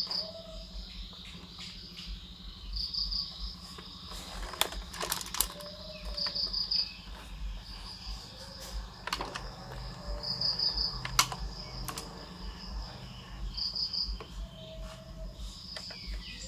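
A cricket chirping in short pulsed bursts about every three to four seconds, with a few sharp clicks and knocks from hands handling a plastic RC excavator model and its plastic tracks.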